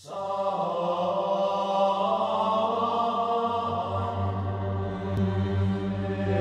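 Intro music of chanted voices singing long held notes, with a deeper low note growing stronger about halfway through.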